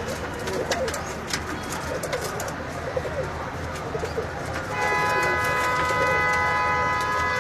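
Domestic pigeons cooing, with scattered sharp clicks. About two-thirds of the way in a loud, steady, pitched tone like a horn or electronic tone starts and holds on, louder than the cooing.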